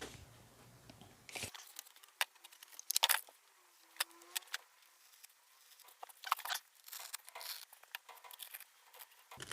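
Scalpel cutting ShadowFoam tool-organiser foam: faint, short scraping strokes with scattered small clicks.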